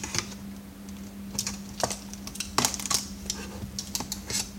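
Irregular sharp plastic clicks and ticks, in small clusters, from a Samsung monitor's outer bezel being pried and worked loose from its hidden clips, over a steady low hum.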